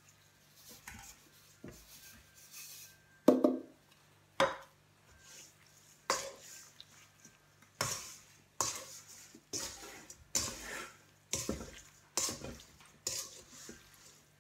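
Salt poured onto small fish in a stainless steel bowl, then a wooden spatula tossing and mixing the salted fish and knocking against the bowl's side about once a second. A louder knock comes about three seconds in.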